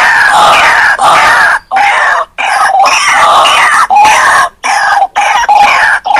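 White-breasted waterhen (ruak-ruak) calling loudly in fast repeated phrases with brief breaks between them.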